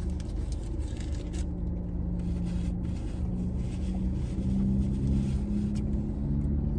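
Steady low rumble of a car heard from inside its cabin, with paper food-wrapper crinkling in the first second or so and soft chewing.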